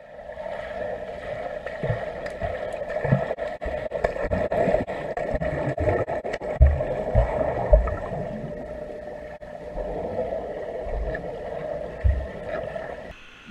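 Muffled underwater sound in a pool: a steady hum with irregular low thuds and faint bubbling and clicks. It cuts off suddenly near the end.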